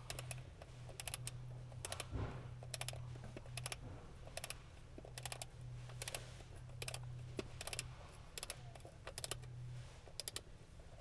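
Small bit ratchet wrench clicking as a cover bolt is run down by hand: short runs of sharp clicks on each back-swing, repeating a little faster than once a second.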